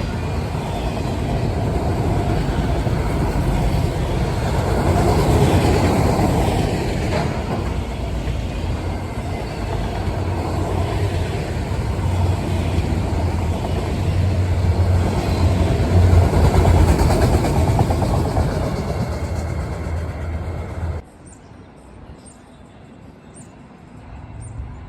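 Freight train rolling past, a loud steady rumble of railcars on the track, which cuts off abruptly about four-fifths of the way through, leaving a much quieter background.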